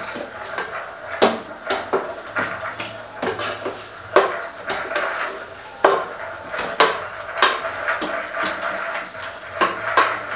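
A long wooden spoon stirring spaghetti in an aluminium pot, knocking and scraping against the pot's sides in repeated, irregular clacks.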